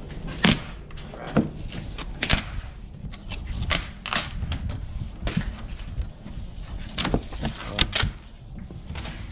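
Large cardboard shipping box being opened by hand: the top flaps folded back and the box handled, with a string of sharp cardboard knocks and scrapes spread through the stretch.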